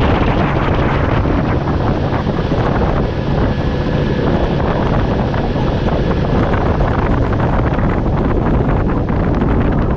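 Heavy wind buffeting the microphone on a boat under way, over the steady running of a Mercury 60 HP outboard motor and the hull moving through the water.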